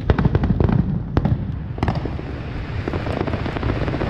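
Fireworks going off: a fast run of crackling pops, with sharper bangs about a second and nearly two seconds in.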